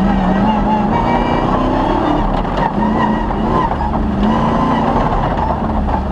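Off-road rally car's engine running hard during a stage, its pitch rising and falling with the throttle over steady road and tyre rumble.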